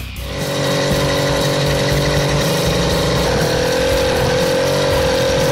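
Small two-stroke engine of a motorized bicycle running steadily under way, its pitch dropping a little about three seconds in.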